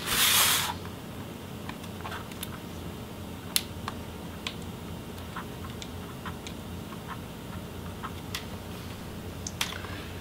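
Small plastic screw covers on a laptop display bezel being picked at and popped out with a tiny flat-blade bit: scattered light clicks and ticks of metal on plastic, after a short scrape of handling at the start.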